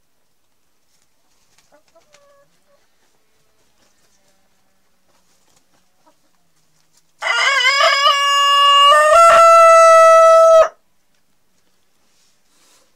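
A rooster crowing once: a single crow of about three and a half seconds that steps up slightly in pitch partway through, holds steady, and cuts off sharply. Faint hen clucks come before it.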